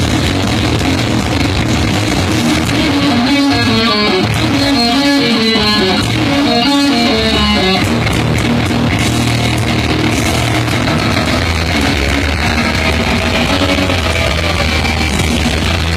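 Live rock band playing loud, with electric guitar to the fore. It is heard through large concert PA speakers right in front of the phone, so the sound is crowded and poor.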